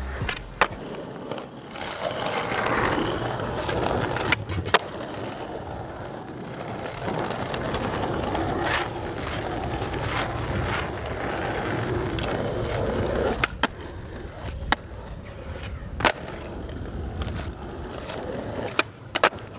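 Skateboard wheels rolling over stone paving slabs, broken by a series of sharp clacks from the board's tail popping and the board landing during flatground flip tricks. The rolling noise runs through most of the first two thirds and then stops, leaving separate clacks.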